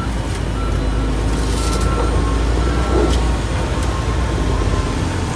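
Heavy construction vehicle's diesel engine running steadily, with a reversing alarm beeping about once a second.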